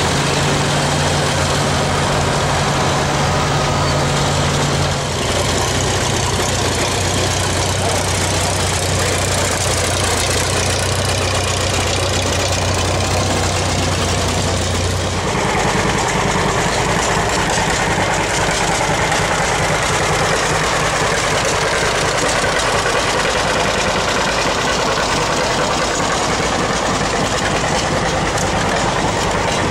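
Vintage farm tractor engines running at low speed as the tractors drive past. The engine tone shifts about five seconds in and again about fifteen seconds in.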